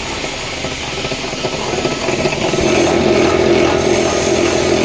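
B11 wire stripping machine running, growing louder about two seconds in as a 2.5 mm wire is fed through and its insulation stripped off.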